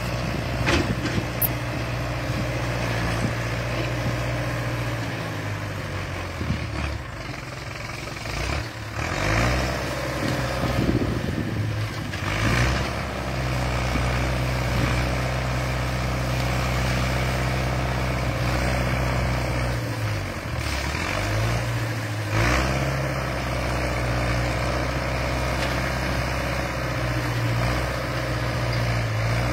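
Old farm tractor's engine running steadily while it works a hydraulic sugarcane loader, its note dipping and picking up again a few times as the loader takes the load.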